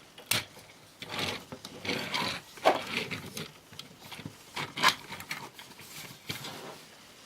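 Plastic parts of a Transformers Siege Ultra Magnus figure being handled while its big cannon is fitted: scattered sharp clicks amid rubbing and rustling.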